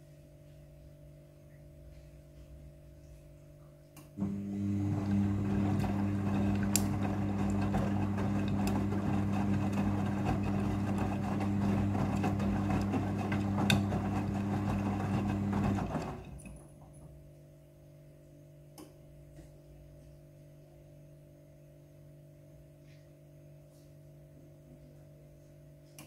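Midea front-loading washing machine in its rinse cycle. About four seconds in, the drum motor starts with a steady low hum and the wet laundry tumbles and sloshes in the rinse water for about twelve seconds. Then the drum stops and only a faint steady hum remains.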